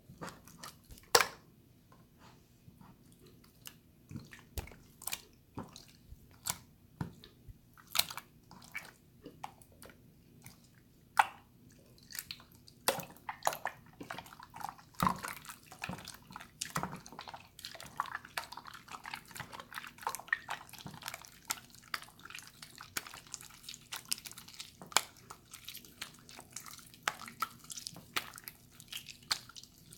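Water slime being squeezed and poked by hand, making wet clicks and sticky popping squelches. These are scattered at first and come thick and fast from about halfway through.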